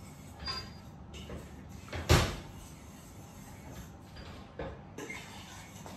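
Kitchen clatter: one loud, sharp knock about two seconds in, with a few lighter clicks and taps around it.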